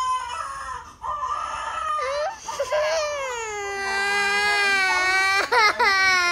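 Toddler crying: wavering, higher cries for the first couple of seconds, then a long loud wail from about three seconds in, a quick catching sob, and a second long wail.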